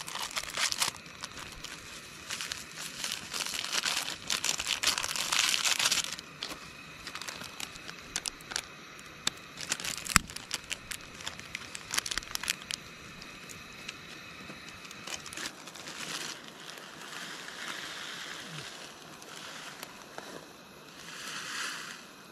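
Plastic and foil sachets crinkling and tearing as they are opened and their powder is tipped into a pot of water, in several bouts with a sharp click about ten seconds in.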